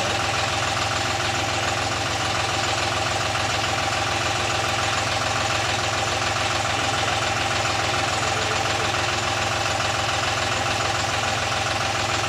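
New John Deere tractor's diesel engine idling steadily.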